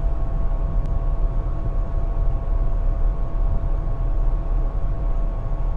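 Daikin rooftop HVAC unit running: a steady low mechanical rumble with a few faint constant hum tones.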